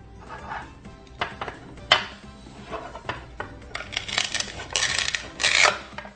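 Toy plastic knife and play fruit knocking and clicking on a plastic cutting board, then a longer rasping stretch about four seconds in as the velcro-joined toy pear is pulled apart, over background music.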